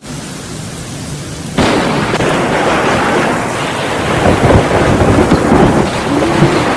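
Thunderstorm with steady rain, then a sudden loud crack of thunder about a second and a half in that keeps on rumbling.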